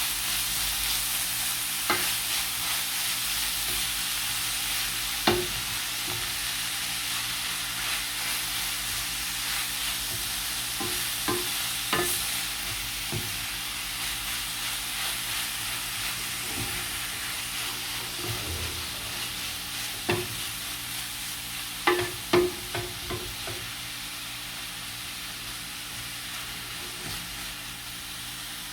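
Minced beef frying with onions and aromatics in a pan: a steady sizzle, with a utensil knocking and scraping against the pan every few seconds as the meat is stirred, the knocks clustering a few seconds before the end.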